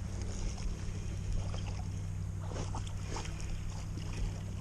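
Steady low rushing of a flooded, fast-running creek, with a few faint clicks about halfway through.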